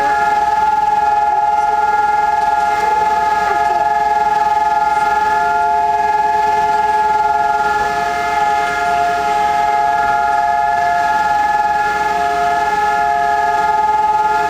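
Israeli civil-defence sirens sounding the steady Yom HaZikaron remembrance tone, the signal for the nationwide standing silence for fallen soldiers. The pitch is held flat without rising or falling, with a couple of close pitches blending together.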